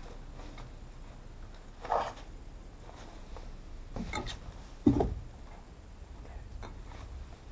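Someone moving over a debris-strewn floor: a short scrape about two seconds in, a few light clicks around four seconds, and a louder thump just before five seconds.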